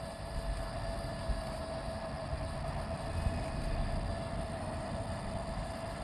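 Small electric motor of a battery toy remote-control car whining steadily at one pitch while the car sits stuck in the grass, with wind rumbling on the microphone.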